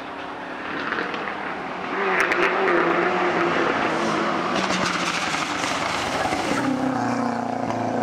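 Lancia Delta Integrale rally car's turbocharged 2.0-litre four-cylinder engine under hard acceleration as the car approaches and takes a corner, growing louder about two seconds in, with some sharp crackles around the middle. Near the end the engine note settles to a lower, steadier pitch.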